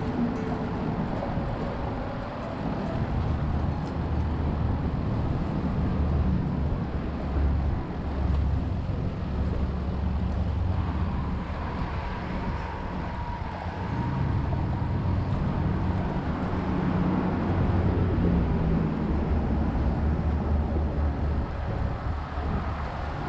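A motor engine running steadily, its pitch stepping up and down a few times, over wind noise on the microphone.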